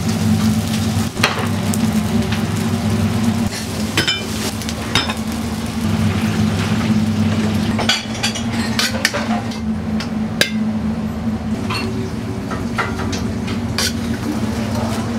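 Commercial kitchen at work: a metal ladle and utensils clinking and scraping against a wok and pans, many separate clinks, over a steady low hum of the kitchen's burners and equipment, with food frying in the wok.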